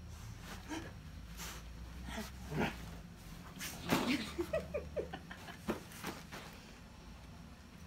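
An English setter play-wrestling with a person on a sofa: a scatter of short dog noises and panting, mixed with brief rustles and knocks of the scuffle.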